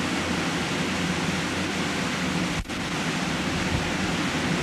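Steady hiss with a low hum underneath, the noise floor of a camcorder's audio. It is broken once by a brief dropout about two and a half seconds in.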